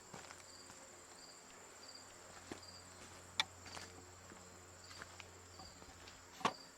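Faint insect chirping: a short high chirp repeating about every two-thirds of a second over a steady high whine. A few light knocks sound over it, the loudest about halfway through and near the end.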